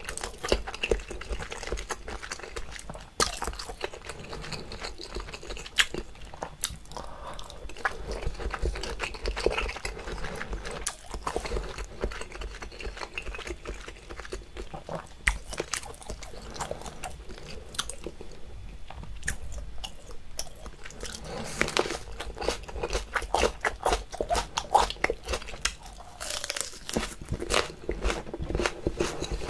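Close-miked chewing of seafood: many small wet clicks and crunches of the mouth working through chewy food.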